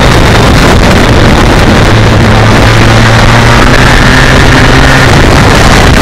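Heavy wind noise on the microphone of a moving motorcycle, with the steady note of a BMW K1200R Sport's inline-four engine cruising at low revs. The engine note comes through more clearly from about two seconds in until about five seconds.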